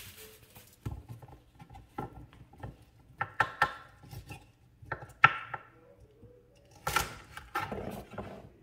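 Kitchen knife cutting the woody ends off asparagus spears on a wooden cutting board: irregular sharp cuts and knocks of the blade on the board, some in quick pairs.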